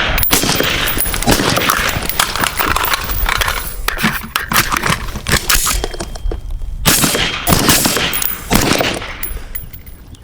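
Suppressed 5.56 AR-15-type rifle fire: a string of sharp shots in quick succession.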